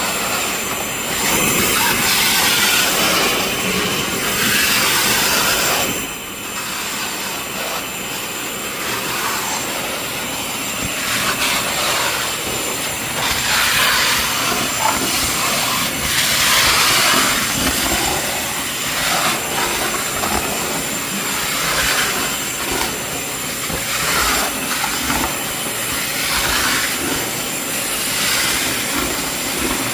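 SD400 TC80A coolant sludge cleaner running with a wide floor nozzle, sucking water off a floor. A steady motor whine under a rushing hiss of air and water, which swells and eases as the nozzle moves.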